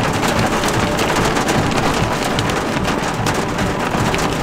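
Heavy rain falling: a dense, steady hiss of drops with many sharp ticks of nearby drops striking close to the microphone.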